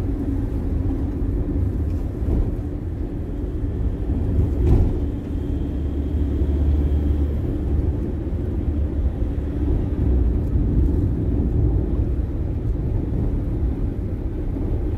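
Steady low rumble of road and engine noise inside a moving car's cabin, with one short knock about five seconds in.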